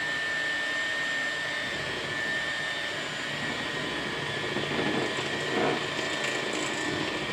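Black+Decker electric hand mixer running steadily, its beaters whirling through cake batter, with a steady high motor whine.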